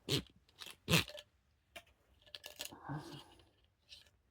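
Handling noise of small metal objects: about three sharp clicks and knocks in the first second, then a rustling clatter around three seconds in.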